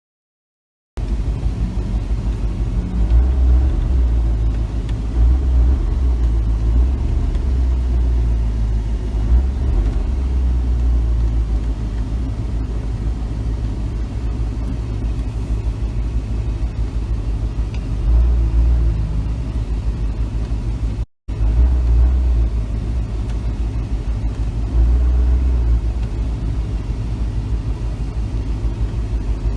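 Pickup truck driving: a steady low rumble of engine and road, broken once by a brief cut about two-thirds of the way through.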